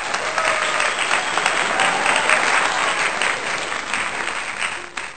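A crowd applauding, a steady dense clapping that tapers off near the end.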